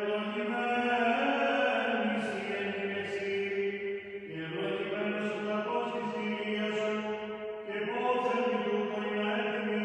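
Solo male voice singing Greek Orthodox Byzantine chant, long held notes in unbroken phrases, with short breaks about four and eight seconds in.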